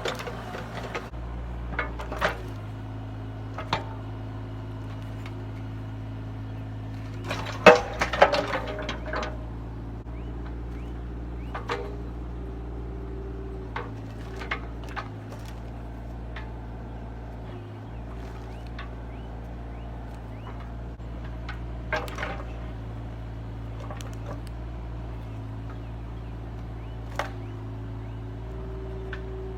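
An engine running steadily with a low hum, with sharp knocks and cracks scattered through it and a loud cluster of them about eight seconds in.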